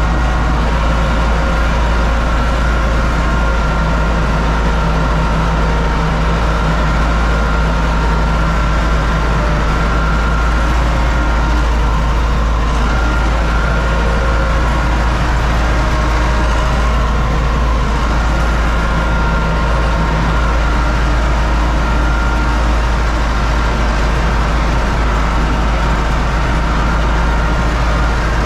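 UTB U650 tractor's four-cylinder diesel engine running steadily at constant speed, a loud, even drone with a deep rumble.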